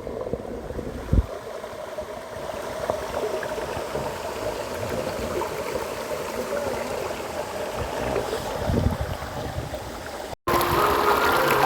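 Waterfall water rushing steadily, with a single thump about a second in. Near the end the sound cuts abruptly to a louder, fuller rush of water.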